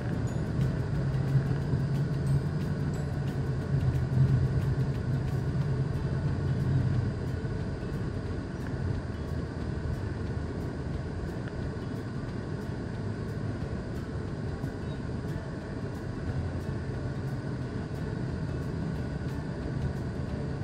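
Low, steady rumble of a car's engine and road noise heard from inside the cabin in slow traffic, a little louder for the first several seconds and then even.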